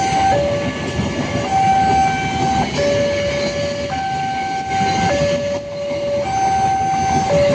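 Railway level-crossing warning siren sounding a two-tone hi-lo wail, switching between its two notes about once a second, over the rumbling noise of a train at the crossing.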